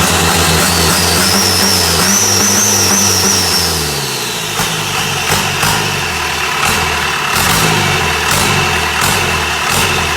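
Turbocharged diesel racing-boat engine revved up and let back down. The engine note climbs over the first couple of seconds with a high whistle rising above it, falls away about four seconds in, then runs on at a fast idle with short sharp ticks.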